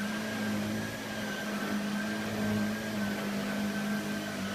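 Hoover Allergy canister vacuum cleaner running on carpet with its power head: a steady motor hum under a constant high whine.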